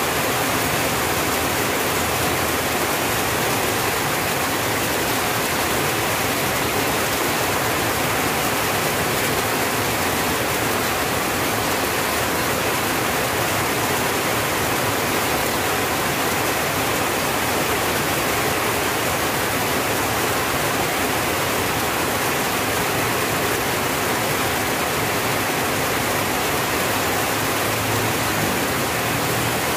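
Rain falling steadily on a tin roof, an even, unbroken hiss.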